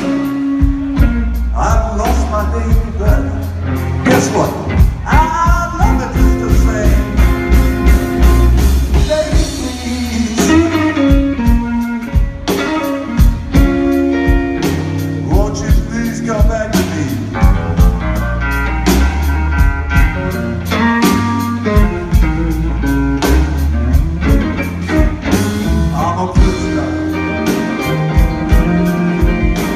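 Live blues-rock trio playing: electric guitar over bass guitar and a drum kit, with a steady beat.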